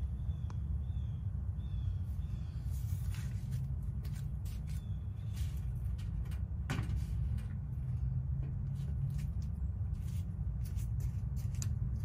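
Steady low rumble with scattered short clicks and rustles, and a few faint, high, short bird chirps near the start and again about five seconds in.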